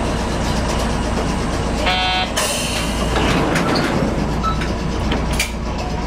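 Manyosen tram standing at a stop, its onboard equipment humming steadily. About two seconds in, a short beep sounds, followed at once by a brief hiss.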